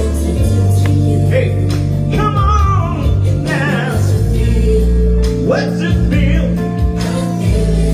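Male soul singer singing live into a handheld microphone, with long, sliding vocal runs over a backing band's sustained bass and chords.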